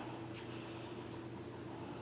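Steady low hum and hiss of room tone, with a brief faint rustle about half a second in.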